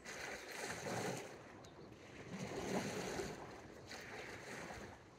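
Small sea waves washing against a rocky shore, a soft rush that swells twice.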